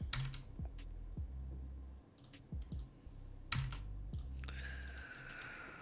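Scattered clicks of a computer keyboard and mouse, a handful of separate taps over a low steady hum.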